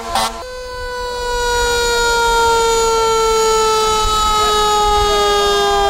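Fire truck siren sounding one long, loud tone that falls slowly in pitch. It opens with two short horn blasts right at the start.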